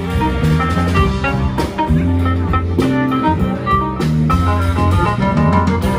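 Small live band playing jazz, with saxophones and electric guitar over a drum kit keeping a steady beat.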